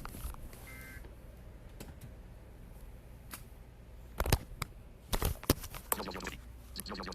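The last of the Emergency Alert System end-of-message data bursts, a short buzzy two-tone warble about a second in. Scattered sharp clicks and knocks follow, coming thicker and louder in the second half.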